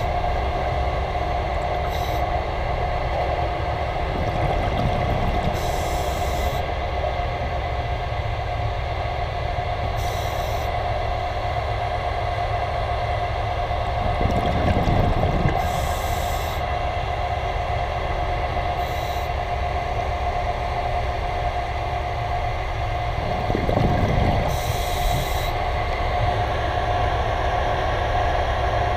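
Underwater ambient noise around a ship's propeller: a steady low rumble with a constant hum. Brief hisses come every few seconds, and two louder swells come about halfway through and again near the end.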